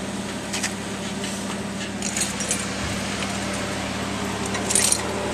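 Short metallic clinks and jingles of tie-down hooks and hardware being fitted at a car's wheel on a flatbed, a few brief bursts about half a second, two seconds and nearly five seconds in, over a steady low hum.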